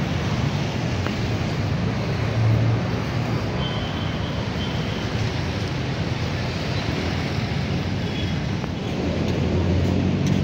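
Steady city street traffic noise: a continuous din of vehicle engines and road noise.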